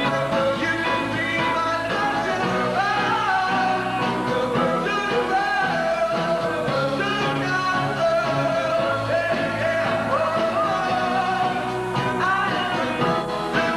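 A man sings a 1950s-style rock and roll song into a microphone over a live band accompaniment.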